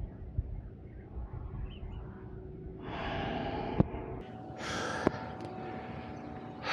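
A cyclist breathing hard while riding, with two loud, hissing exhales in the middle, over a low rumble of riding noise. Two sharp clicks come with the breaths.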